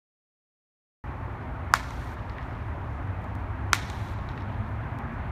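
A baseball bat hitting pitched balls in batting practice: two sharp cracks about two seconds apart, over a steady low outdoor rumble that starts about a second in after silence.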